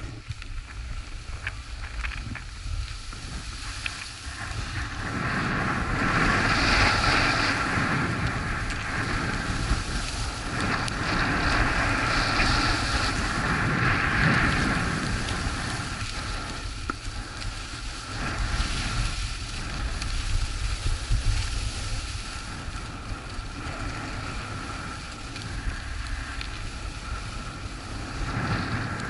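Skis hissing and scraping over packed, tracked-up snow on a downhill run, rising and falling in waves, with wind rushing over the microphone.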